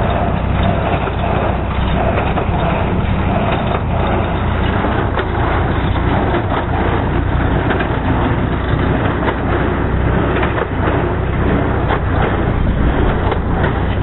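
New Holland 273 small square baler working behind a Ford tractor: the tractor engine and the baler's pickup and plunger run steadily and loudly as hay is gathered and pressed into bales.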